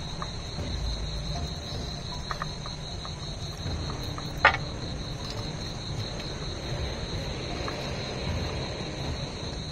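Night insects chirring steadily in one high, continuous tone. Over it come a few light clicks and one sharp knock about halfway through, as fruit is handled and set on an altar plate.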